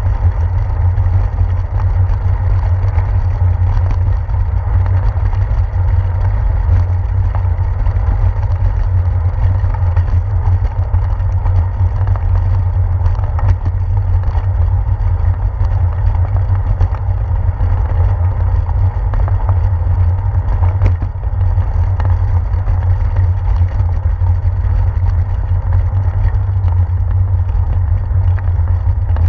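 Steady low rumble of wind buffeting and road vibration picked up by a handlebar-mounted GoPro as a bicycle rolls over brick pavers.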